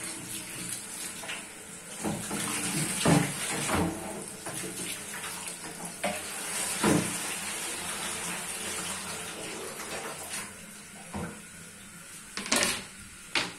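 Kitchen tap running onto a plastic cutting board while it is rinsed and rubbed by hand, with scattered knocks and clatters as the board is handled. The water stops about ten seconds in, and two sharp knocks follow near the end.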